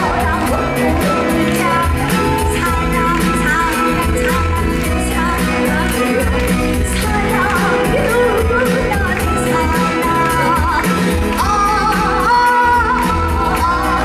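A woman singing a song live into a handheld microphone over musical accompaniment with a steady beat.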